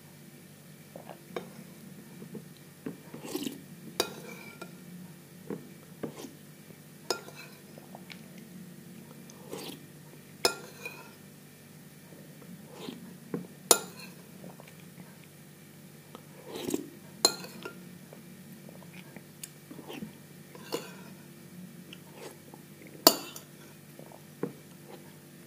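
Metal spoon clinking and scraping against a ceramic bowl as porridge is scooped up, a sharp clink every second or few, with soft mouth sounds of eating between the strokes.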